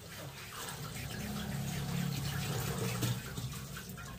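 Water running and splashing in a stainless steel sink.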